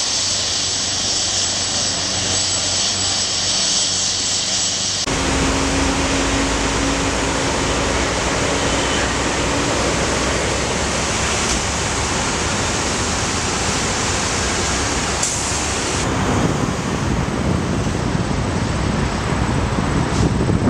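Air ambulance helicopter running on the ground with a steady hissing whine. It cuts suddenly about five seconds in to a steady outdoor rush of highway noise and wind. Near the end this grows louder as a tractor-trailer tanker and cars pass at speed.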